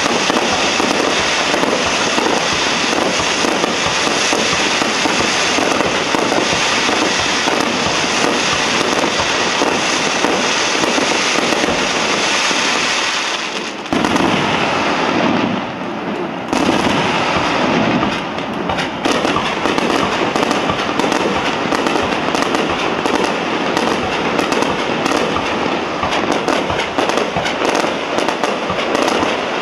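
Aerial fireworks bursting and crackling in a dense, continuous barrage. The crackle briefly thins about halfway through, then picks up again.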